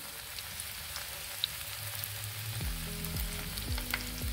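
Hot oil sizzling and crackling steadily around rings of bread frying in a pan. About two and a half seconds in, a low steady beat of background music comes in under the sizzle.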